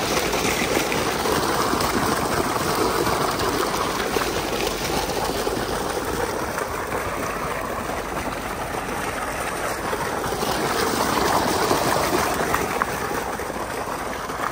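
Water gushing steadily from a large outlet pipe and splashing into a stone pool.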